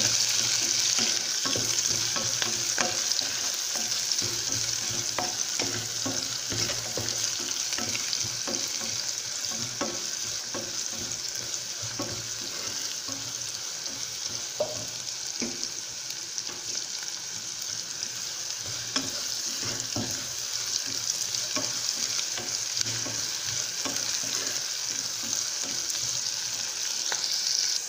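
Sliced onions sizzling in hot oil in a pan, sautéed toward browning, while a spatula stirs them with frequent scrapes and taps against the pan.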